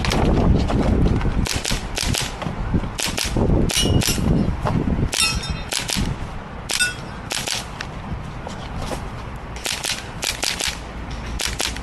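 Airsoft gun firing shot after shot, sharp cracks mostly in quick pairs and short strings with irregular gaps between them, over a low rumble during the first five seconds or so.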